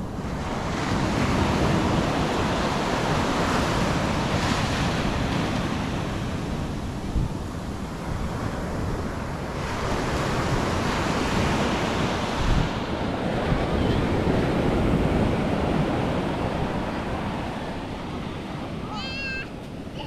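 Ocean surf breaking and foaming up a sandy beach, swelling and fading in slow waves, with wind buffeting the microphone. A brief high, wavering cry comes near the end.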